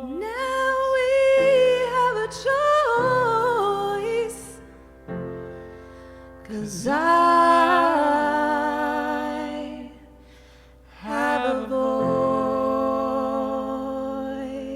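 Wordless sung vocal runs over a soft keyboard accompaniment: three long phrases with vibrato and held notes, with brief instrumental gaps between them and the last note fading near the end.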